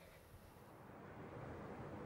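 Faint, low rumble of distant city traffic, growing louder about halfway through and then holding steady.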